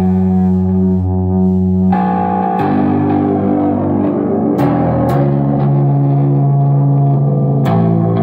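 Squier Bronco short-scale bass guitar played through distortion and delay pedals: about five notes plucked, each held long and ringing on into the next.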